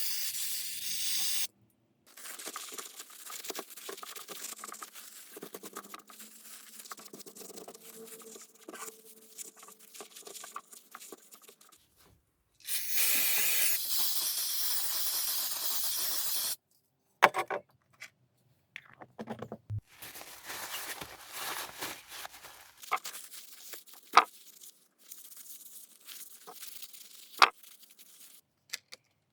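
Two bursts of hissing spray aimed at carburettor parts being cleaned: a short one at the start and a longer one of about four seconds midway. Between them come quiet handling noises and a few sharp clicks of small metal parts.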